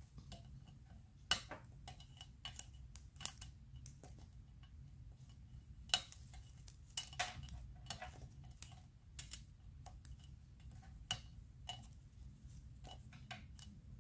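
Scattered light clicks and taps of cardstock strips and a plastic folding tool on a craft mat as folds are creased, over a faint steady low hum.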